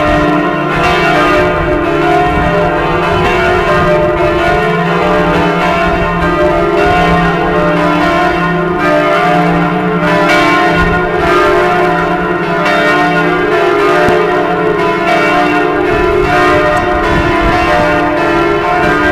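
The bronze bells of Notre-Dame de Paris pealing together, loud. Several bells are struck over and over, and their overlapping tones hang on into each other without a break.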